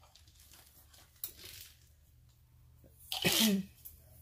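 A woman sneezes once, about three seconds in, sharp and loud. A faint click comes about a second earlier.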